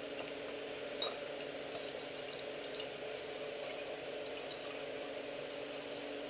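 Beer trickling from a tube into a stainless steel funnel and down into a bottle, over a steady background hum, with a light click about a second in.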